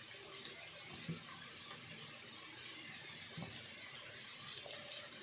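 Faint, steady sizzling of vegetables frying in ghee in a wok, with a couple of soft taps.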